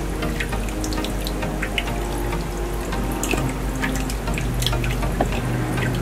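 Thin streams of water trickling and splashing from straw spouts into the plastic cups of a small homemade tabletop fountain, with many small droplet splashes, over soft background music with held notes.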